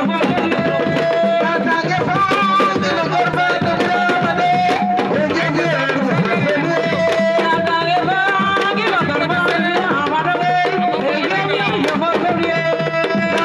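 Music of fast hand drumming, dense rapid strokes throughout, with a melody of long held notes that slide in pitch over it.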